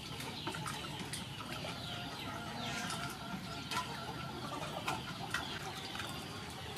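Chickens clucking in the background, with light splashes and small knocks as raw chicken drumsticks are washed by hand in a metal bowl of water.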